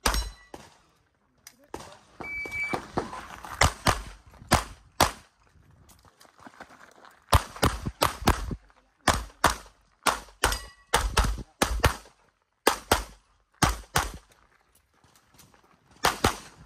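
Handgun firing fast strings of shots in a practical-shooting stage: pairs and short runs of sharp reports a fraction of a second apart, broken by brief pauses between strings.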